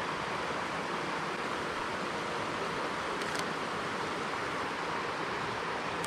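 Steady rush of running water from a forest stream, an even hiss that does not change. A couple of faint ticks come about halfway through.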